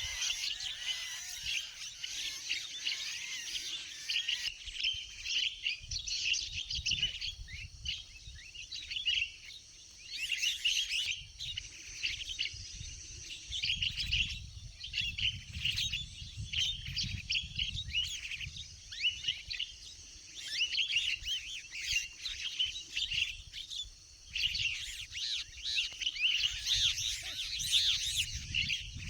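Birds chirping and calling in quick, overlapping notes, with a low rumble coming and going underneath.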